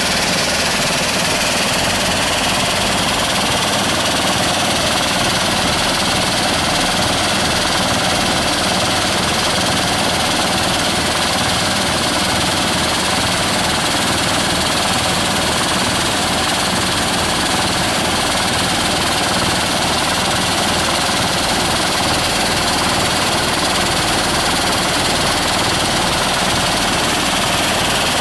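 Engine-driven soil screening machine running steadily, with a dense mechanical noise that stays unchanged throughout.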